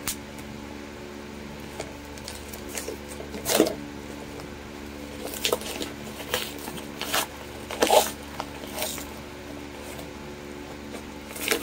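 Paper rustling and tearing as a padded mailer envelope is opened by hand, in a handful of short, irregular crinkles, over a steady low hum.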